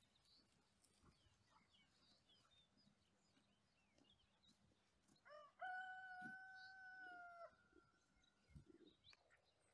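A rooster crows once about five seconds in: a quick rising start, then a long held note of about two seconds that dips at the end. Faint small-bird chirps come and go around it.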